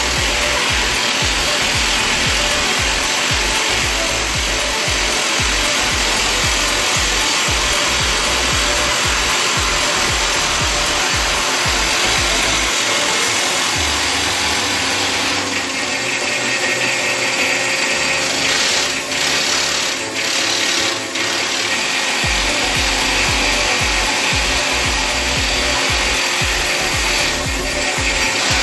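Hydraulic rock drill of a Resemin Raptor 55 long-hole drilling rig running, drilling long holes with a 64 mm bit: a loud, continuous clatter with rapid low pounding. The pounding drops out for several seconds about halfway through, then returns.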